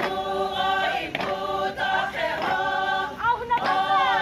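A group of voices singing a Sumi Naga folk chant together in long held notes, phrase after phrase, with a few sharp knocks between phrases.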